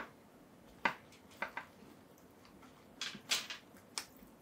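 Scattered light clicks and taps of a plastic action figure and its parts being handled, about six in all, with a small cluster about three seconds in.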